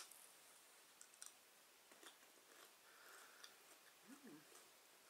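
Near silence with faint, scattered clicks of quiet chewing on yogurt-coated tangerine chips, and a short soft hum about four seconds in.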